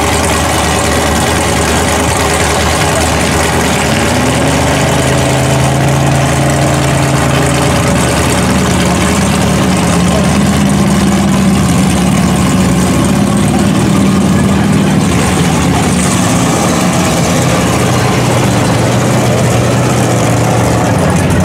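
Supercharged LQ4 V8 of a giant mud-bogging Jeep running. It idles, rises in pitch about four seconds in and holds higher revs through the middle, then settles back to a lower, steady note near the end.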